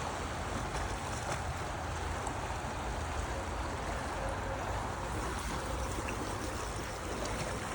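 Steady rush of flowing stream water, an even noise with a low rumble underneath.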